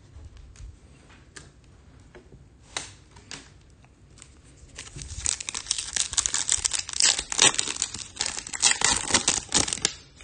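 A foil Topps Chrome trading card pack wrapper is torn open and crinkled. There are a few light handling clicks at first, then dense, loud crinkling and tearing through the second half.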